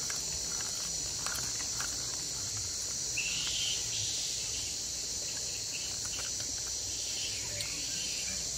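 Steady, high-pitched drone of an insect chorus, with a brief fainter call about three seconds in.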